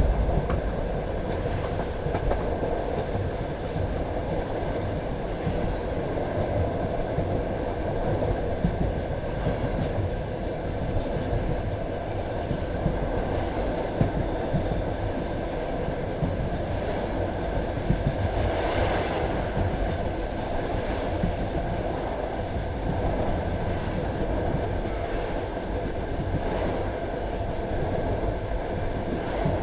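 Passenger railway carriage running along the track at speed: a steady rumble of wheels on rails, with occasional knocks as the wheels cross rail joints.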